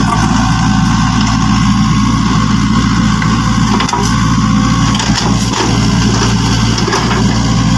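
A steady engine idling hum, with a few brief knocks and scrapes from a plastic toy excavator being moved over dirt.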